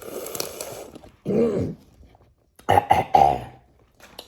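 A woman coughing and clearing her throat: a rough rasp, a short hack, then a quick run of several coughs about three seconds in.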